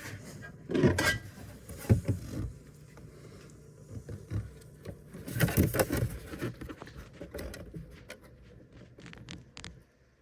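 Hands working on a Volkswagen Touareg's plastic dashboard and centre console trim: irregular scrapes, knocks and rubbing, with a quick run of light clicks near the end.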